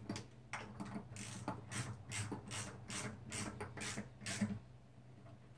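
A ratchet wrench clicking in an even run, about three clicks a second, as the 10 mm bolts of a bearing end cap on a hydraulic pump motor are run in. The clicking stops about a second before the end.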